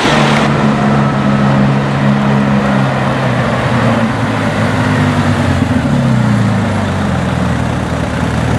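Porsche 911 GT3 RS's flat-six engine running at low revs as the car drives slowly by: a steady, deep engine note whose pitch falls about six seconds in.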